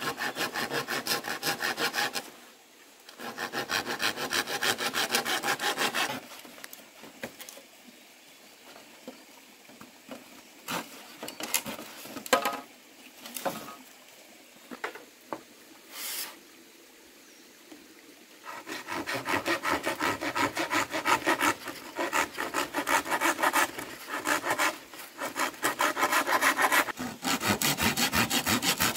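Hand saw cutting wood in quick, even back-and-forth strokes. Two stretches of sawing are followed by a quieter spell of about twelve seconds with a few scattered knocks and taps, then sawing again.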